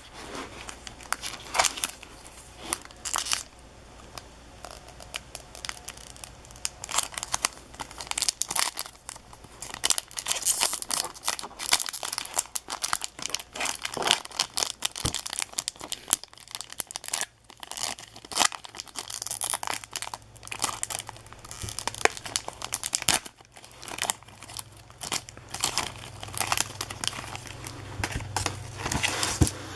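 2016-17 O-Pee-Chee hockey card pack wrappers being torn open and crinkled by hand, a steady string of irregular crackling tears and rustles as the cards are pulled out and handled.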